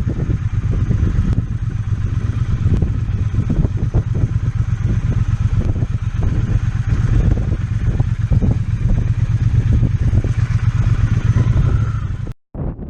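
Triumph T120 motorcycle's parallel-twin engine running steadily while riding, a dense low rumble with a faint rise in pitch twice. The sound cuts out abruptly for a moment near the end.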